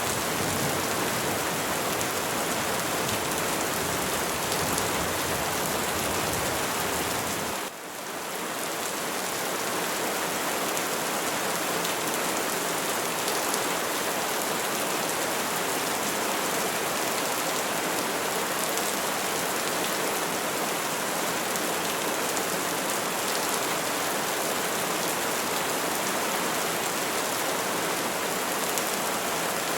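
Steady rain falling on trees, an even hiss. About eight seconds in, it dips briefly and fades back in, with less deep rumble underneath afterwards.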